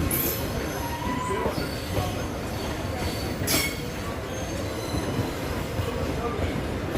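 Passenger train running on the rails: a steady rumble with high-pitched wheel squeals coming and going over it.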